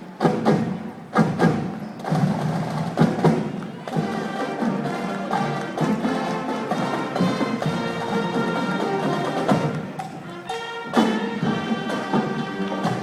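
A parade marching band playing: a run of sharp drum hits over the first few seconds, then the band holding sustained chords over a steady beat.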